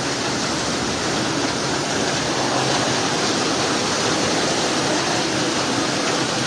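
Floodwater rushing down a street in a strong, steady torrent.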